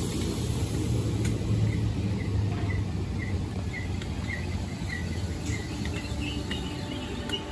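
Merseyrail electric multiple unit running past the platform with a steady low rumble. In the middle, a series of short high chirps comes about twice a second.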